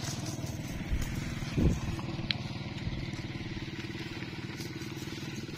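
A small engine running steadily, its low pulsing note unchanged throughout, with a single thump about a second and a half in; the engine sound cuts off abruptly at the end.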